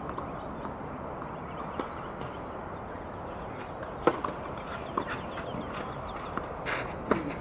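Tennis ball struck by a racket: a sharp serve about four seconds in, then a return a second later and another shot near the end, with a shoe scuff on the court and a faint ball bounce before the serve. Steady outdoor background hiss runs beneath.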